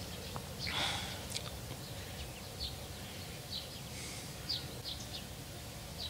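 Quiet outdoor ambience with a few brief, high bird chirps scattered through it, and a soft rustle about a second in.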